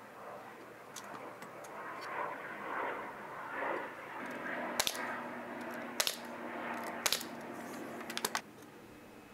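Pneumatic brad nailer firing 1.5-inch brads into cedar box panels: several sharp shots about a second apart in the second half. Before them, softer handling and rustling as the glued pieces are set in place.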